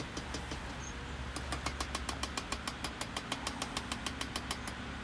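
Power hammer striking a red-hot bar of high-carbon steel, drawing out a knife point: a fast, even run of blows, about seven a second, that stops shortly before the end. A fan hums steadily underneath.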